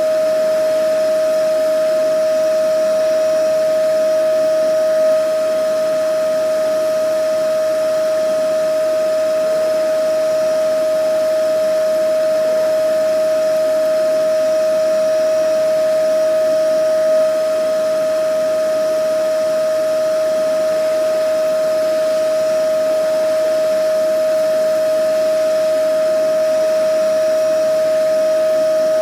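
Vacuum cleaner running steadily: a constant motor whine over rushing air.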